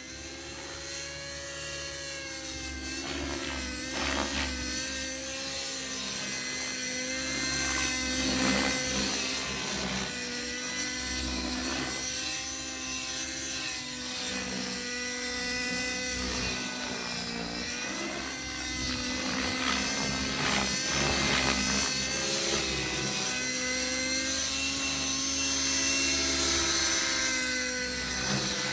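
Align T-Rex 600 nitro RC helicopter in flight: its two-stroke glow engine and spinning rotor blades whine continuously, the pitch repeatedly rising and falling as it manoeuvres through the sky.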